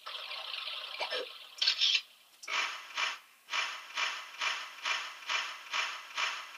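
Electronic keyboard playing noise-like sound-effect samples: a steady hiss for about two seconds, a short louder burst, then a regular run of noisy pulses a little over two a second.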